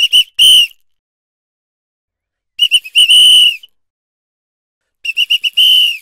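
Indian bus conductor's metal pea whistle blown three times. Each time it gives a few quick short toots and then a longer, shrill blast.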